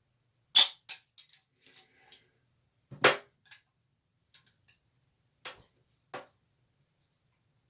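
Vintage padlock of the German System Dulv type being worked with its key: a handful of sharp metallic clicks and clacks as the key turns and the shackle moves. The loudest clack comes about three seconds in, and another about five and a half seconds in carries a brief high metallic ring.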